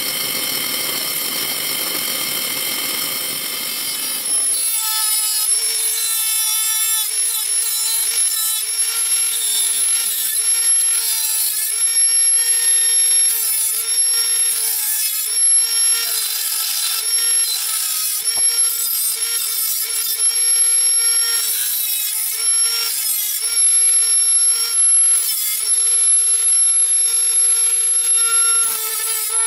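A drill press runs for the first four seconds. Then a Dremel rotary tool with a small bit grinds through sheet metal along a ring of drilled holes, a high whine with a rasping edge that starts and stops in short spells as the bit is pressed on and lifted.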